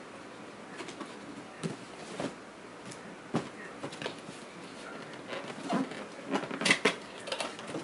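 Hands handling a cardboard box: scattered light taps, rubs and scrapes of cardboard, louder and more frequent near the end as the box is worked open.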